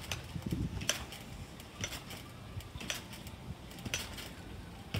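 Bouncing on a trampoline with a trampoline scooter: a sharp click with a low thud at each landing, about once a second, five times in a row.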